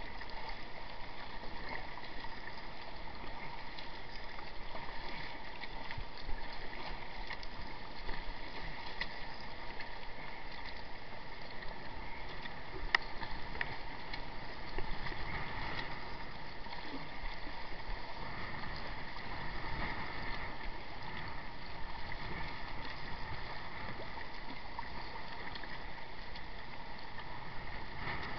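Water washing and splashing along a kayak's hull as it is paddled, a steady rushing sound with a few sharp knocks, the sharpest about halfway through.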